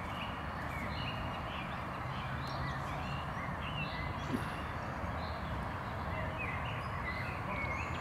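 Small birds chirping with short repeated calls over a steady outdoor background rumble, with one brief click about four seconds in.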